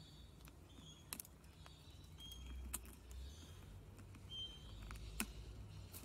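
Australian king parrot's beak pecking and cracking seeds at a seed bell: a few faint, sharp clicks a second or two apart, over a low outdoor rumble, with a few brief, faint high chirps.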